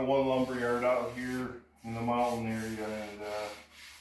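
A tongue-and-groove board being slid along a miter saw stand, wood rubbing and squeaking in two long drawn-out strokes, the second starting about two seconds in.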